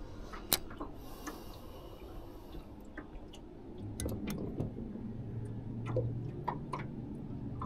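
Scattered small clicks and taps of fishing gear being handled in an aluminum jon boat, with faint water sounds. A faint steady low hum comes in about four seconds in.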